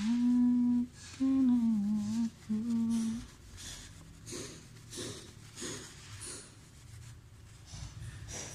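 A person humming a few held, wavering notes of a tune for about three seconds. Then a run of soft scraping strokes, about one and a half a second, as adhesive residue is cleaned off a phone's LCD panel.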